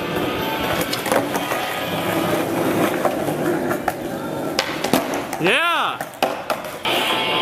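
Cheap skateboard rolling over stone paving, its deck knocking down several times, under background music. About five and a half seconds in, a short pitched sound rises and falls.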